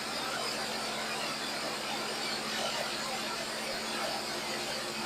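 Maize milling machinery running steadily: a constant mechanical rush with a low electric-motor hum underneath.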